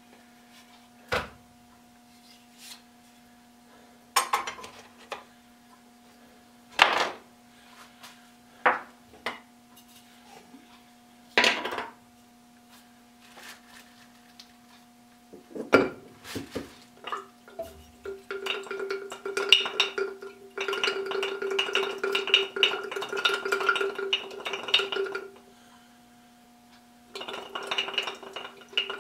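A few separate knocks as wooden plane parts and tools are handled and set down on a workbench. About two-thirds of the way in, a glass jar starts rattling and clinking continuously with a ringing tone, breaks off, and starts again near the end.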